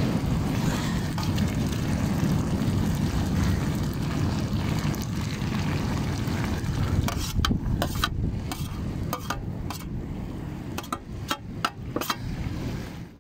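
Steady low rumble of wind on the microphone. From about seven seconds in, a spoon knocks and scrapes against the metal cooking pot a number of times as fish stew is stirred.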